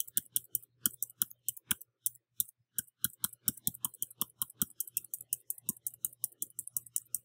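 Computer keyboard keys being typed in a quick, fairly even run of clicks, about five or six keystrokes a second, as a long password is entered.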